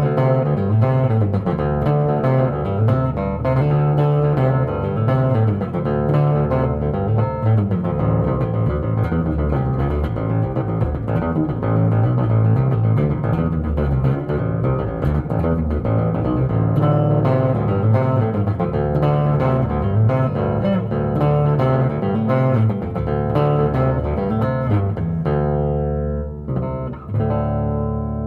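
Rickenbacker 4003S electric bass picked through an amplifier on its genuine 'toaster' neck pickup, playing a continuous run of notes with a brief break near the end.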